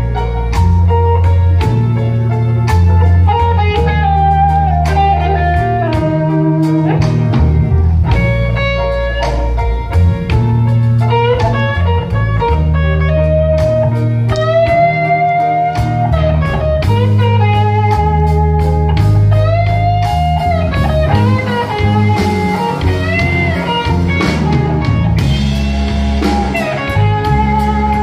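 Live blues band playing: an electric guitar lead of sustained, bending notes over a stepping bass line and drums.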